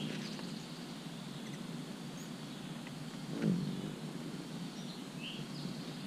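Steady rain falling on the trees and leaves, with a few short high bird chirps, one right at the start and one about five seconds in, and a brief thump about three and a half seconds in.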